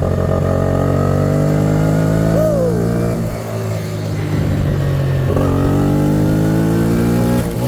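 Yamaha Raptor 80 ATV's small single-cylinder four-stroke engine running under way on its newly fitted replacement carburetor. The revs hold, fall off about three seconds in, then climb steadily again from about five seconds in.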